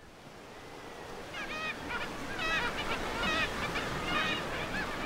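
Breaking sea surf hissing and rushing, fading in, with gulls calling repeatedly over it from about a second in.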